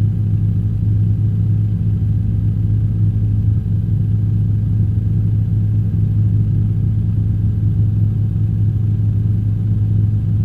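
Helicopter in flight, heard through the cockpit intercom: a steady low drone of engine and rotor that does not change.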